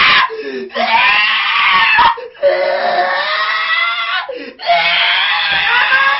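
A man wailing loudly in long, drawn-out sobbing cries, gasping for breath between them about every two seconds.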